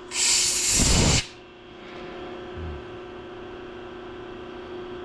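Hands handling a twist drill bit and small tools close to the microphone: a loud rubbing scrape for about the first second, then a steady low hum in the background.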